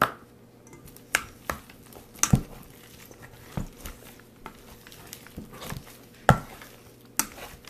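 A plastic spoon knocking and scraping against a metal mixing bowl while slime is stirred with its activator: a dozen or so sharp, irregular clacks, loudest about two seconds in and again about six seconds in.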